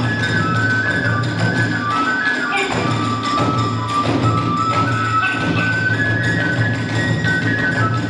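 Kagura hayashi ensemble playing: a bamboo flute carries a stepping high melody over continuous drumming and hand cymbals.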